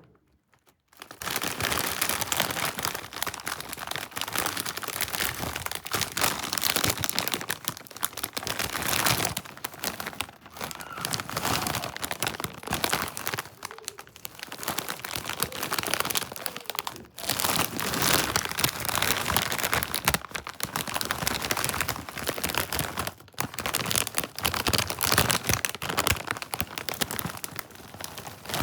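Plastic snack bag of Star Chrupki crinkling continuously as it is handled, starting about a second in.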